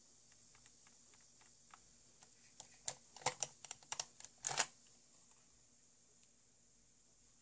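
A quick, irregular run of light clicks and clacks, about a dozen, bunched from a couple of seconds in to near the middle, from an airsoft gun's mechanism being worked by hand while its electric bolt stop is checked after a sensor replacement.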